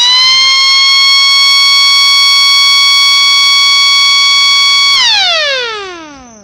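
Siren sounding very loud at a steady high pitch. About five seconds in it is shut off and winds down, its pitch falling smoothly and fading away.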